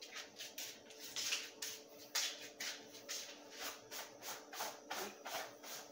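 Wooden spoon stirring dry flour in a plastic bowl, a run of short scraping strokes at about three a second.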